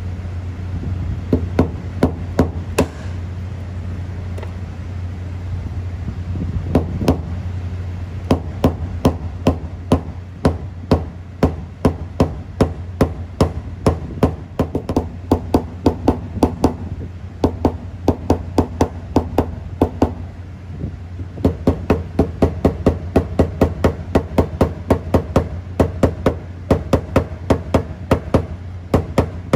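Paintless dent repair tap-down: a hammer striking a knockdown tool against a car's sheet metal to lower high spots along a body line. A few scattered taps come first, then a steady run of about two to three light taps a second, pausing briefly twice. A steady low hum runs underneath.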